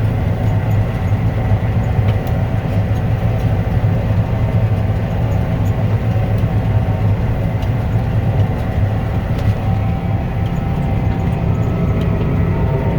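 John Deere 9500 combine harvester running steadily under load, a loud, even engine and threshing drone.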